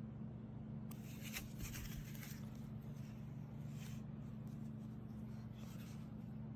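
Faint scraping and rustling handling noises in two short spells over a steady low hum.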